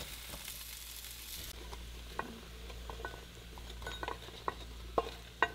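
Diced potatoes sizzling in oil in a nonstick frying pan while a wooden spoon stirs them. After about a second and a half the sizzle stops, and scattered knocks and scrapes follow as the spoon pushes the browned potatoes out of the pan into a bowl, the loudest near the end.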